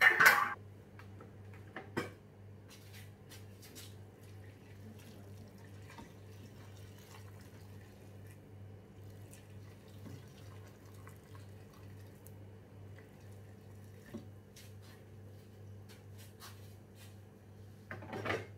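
Hot water poured from an electric kettle into a metal cooking pot of pork ribs, a faint steady splashing and trickling over a low steady hum. A few light clicks and knocks, with a brief loud knock at the very start.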